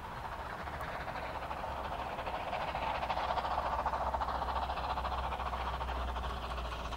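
Narrow-gauge steam locomotive working a train, its quick, even exhaust beats swelling to their loudest midway and easing slightly near the end.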